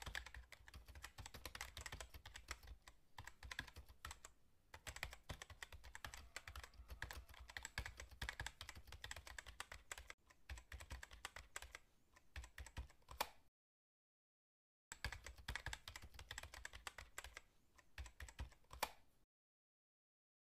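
Rapid computer-keyboard typing clicks in a dense stream of keystrokes. They break off for about a second and a half two-thirds of the way through, resume, and stop shortly before the end.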